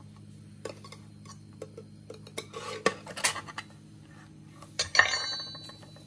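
Steel kitchen knife clinking and scraping against tin cans and their metal lids as the lids are prised up, with a sharp metallic clank about five seconds in that rings briefly. A low steady hum runs underneath.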